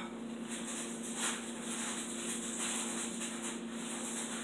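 Soft, uneven rustling of toys being handled close to the microphone, over a steady low hum.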